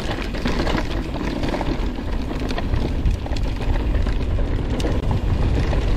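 YT Capra mountain bike descending a dirt trail: steady wind rumble on the camera microphone with tyres rolling over dirt, and short sharp clicks and rattles from the bike over bumps.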